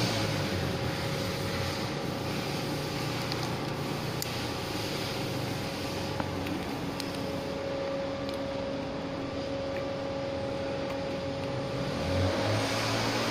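Steady mechanical hum with noise underneath, holding level throughout, with a few faint clicks.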